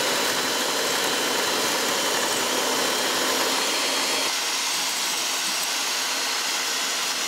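Black & Decker electric hand mixer running steadily, its wire beaters whisking the egg-yolk base for a mayonnaise in a glass measuring cup.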